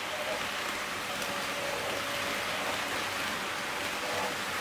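Jouef HO scale TGV Duplex model train running on its track: a steady rolling hiss of metal wheels on the rails with a faint, even motor whine.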